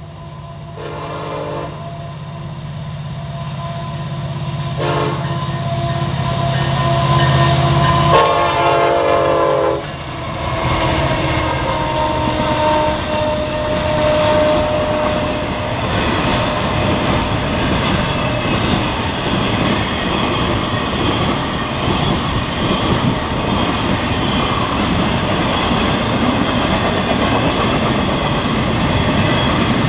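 Florida East Coast Railway diesel freight locomotives sound their horn three times as they approach: two short blasts, then a longer, louder one, over the rising drone of the engines. Then a long double-stack intermodal train rolls by with a steady rumble and clickety-clack of wheels on rail.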